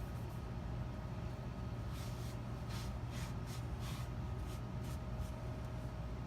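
Edge Pro sharpening stone being cleaned: a quick run of about eight short hissing strokes over some three seconds, starting about two seconds in, over a steady low hum.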